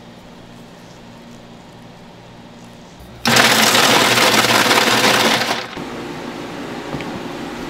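Electric ice shaver running for about two seconds, cutting a block of ice into a metal bowl: a loud, even hiss that starts suddenly about three seconds in and drops away quickly. A low steady hum from shop equipment sits under it.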